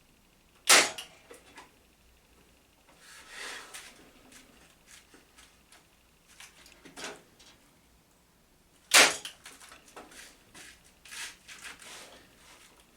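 Lidl Parkside PET 25 C2 electric nailer-stapler firing twice, two sharp snaps about eight seconds apart as it drives brad nails into wood. Between the shots, smaller knocks, clicks and a brief scrape of the tool and timber being handled.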